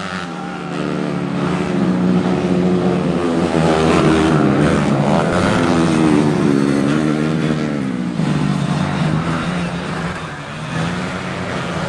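Modified underbone race motorcycles running hard, their engine notes rising and falling as they rev. The sound is loudest in the middle stretch and eases off near the end.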